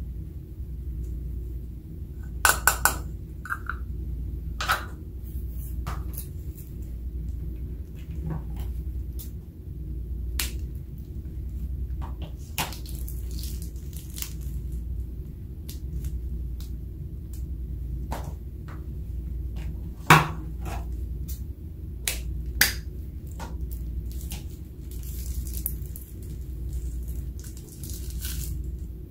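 Scattered clicks and taps of a plastic cup and a piping bag against a glass baking dish as glitter and glue are poured and squeezed into it. There is a cluster of sharper knocks a few seconds in and two single loud knocks about two-thirds of the way through, over a steady low hum.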